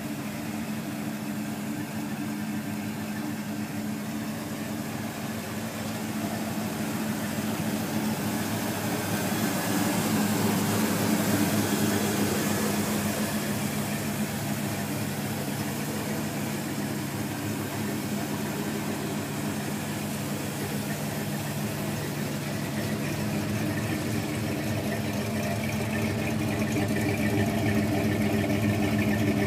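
1978 Chevrolet K5 Blazer's engine idling steadily through Sanderson cast iron headers and a 2.5-inch exhaust, the exhaust note louder near the end at the tailpipe.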